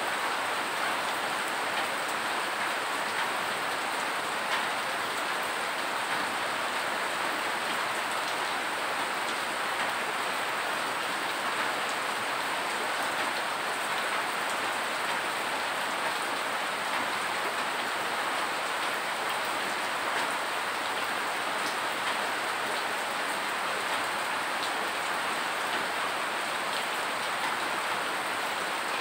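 Steady rain falling, its drops splashing on a wet concrete floor.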